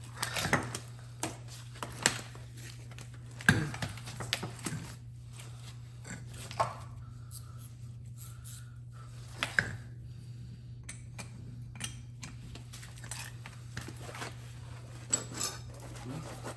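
Metal tools and sprayer parts clinking and knocking at irregular intervals as wrenches are worked on the sprayer's fittings, over a steady low hum.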